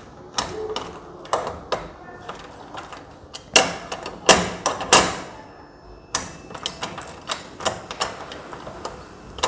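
Key turning in a Europa door lock, the bolt and latch clicking and clacking with the key bunch jangling, the loudest clacks coming about halfway through. The lock is turning smoothly now that its screws have been loosened.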